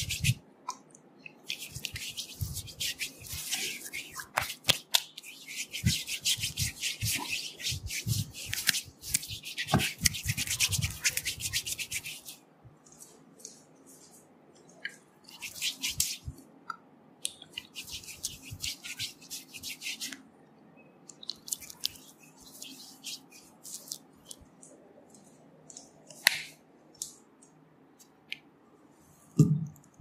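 Hand rubbing and sliding over oiled bare skin in a back massage, in runs of brisk rubbing strokes. They are dense for the first dozen seconds, then come in shorter, sparser runs with quiet gaps between.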